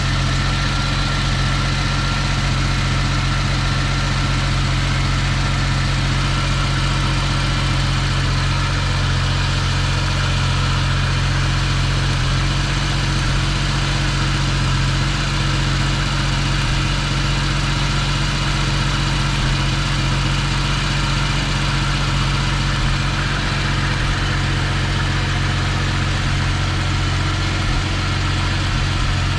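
Jaguar XJS V12 engine idling steadily after an overhaul.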